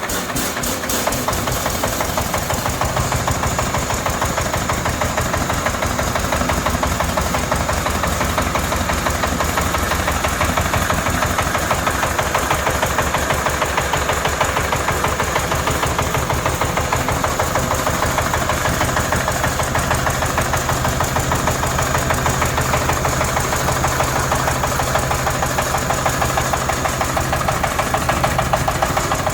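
Compact excavator's engine running steadily, with a fast, even pulsing clatter.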